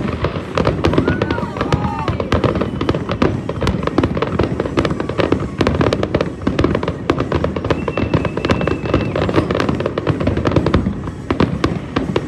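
Fireworks display: a dense, continuous barrage of bangs and crackles, many per second.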